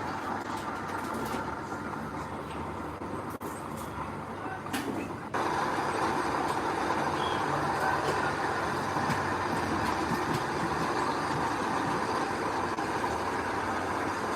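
Heavy earthmoving machinery running steadily, with engine and mechanical noise. The sound steps up abruptly and gets louder about five seconds in.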